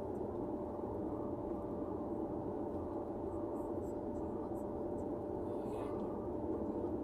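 Steady road and engine noise of a car driving at highway speed, heard inside the cabin, with a faint constant hum running through it.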